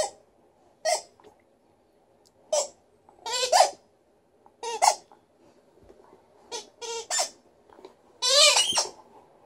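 A squeaky rubber ball toy squeaking as an Alaskan Malamute chews and bites it. There are about nine short squeaks at irregular intervals, a couple of them longer, and the longest, near the end, rises in pitch.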